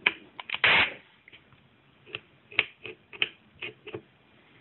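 Light clicks and taps of the autohammer's metal hammer pin and plastic head housing being handled by fingers, with one short scraping rustle under a second in that is the loudest sound. The clicks come singly and irregularly, about half a second to a second apart.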